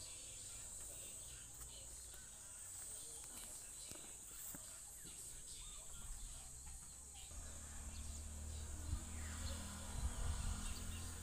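Outdoor ambience: a steady high-pitched insect buzz over a low rumble, with a couple of faint falling bird calls near the end.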